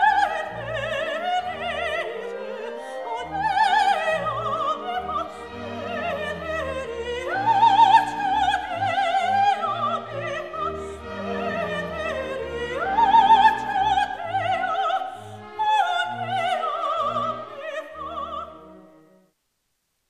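A high operatic voice singing with heavy vibrato over an orchestral accompaniment. It stops about a second before the end.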